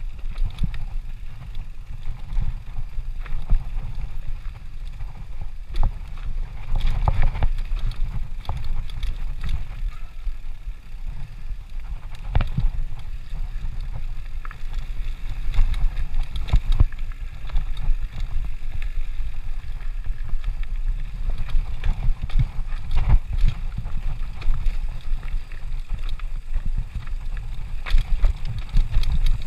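Mountain bike rolling down a rocky, rooty dirt trail: a steady low rumble of wind on the microphone and trail vibration, with frequent irregular knocks and rattles as the wheels strike rocks and the bike shakes.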